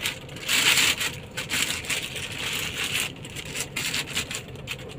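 Thin black plastic bag rustling and crinkling in irregular bursts as a hand pulls it open and shifts it around stacked bundles of banknotes.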